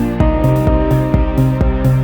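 Background music with a steady beat and sustained synthesizer-like notes.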